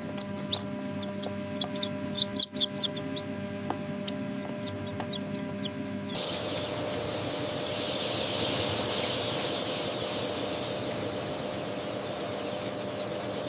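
Newly hatched chicks peeping, with scattered single high cheeps over a steady hum. About six seconds in, this changes abruptly to a dense chorus of many chicks peeping at once.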